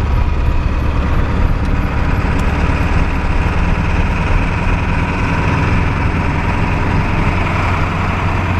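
Pickup truck driving, with a steady engine drone and road noise heard from inside the cab.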